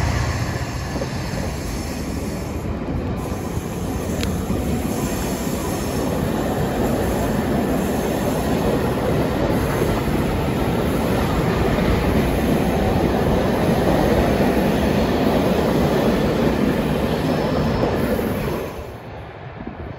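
Loco-hauled passenger coaches rolling past at speed beneath a bridge: a steady rumble of steel wheels on rail that drops away suddenly near the end.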